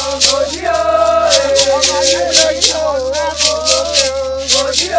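Shekere, a beaded gourd rattle, shaken in a steady beat of about three strokes a second, with voices singing a long held melodic line over it.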